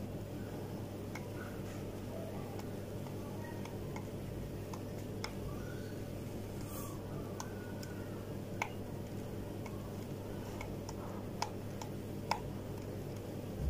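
Steady low electrical hum with faint ticks scattered at irregular intervals.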